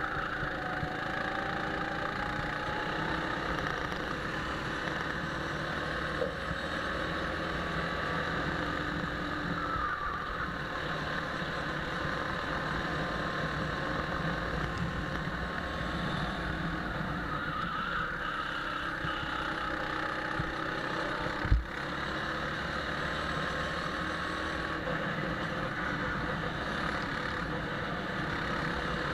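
Go-kart engine heard from the driver's seat while lapping, its pitch rising and falling with throttle through the straights and corners, over a steady noisy rush. A single sharp knock comes about two-thirds of the way through.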